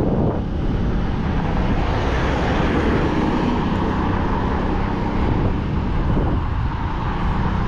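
A motorcycle running steadily along a road, with wind rushing on the microphone.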